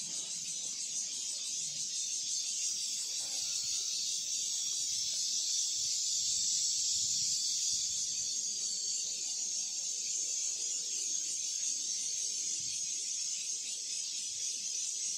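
A steady high-pitched hiss or drone fills the background throughout, with faint, irregular soft sounds of dogs sniffing and eating at the ground beneath it.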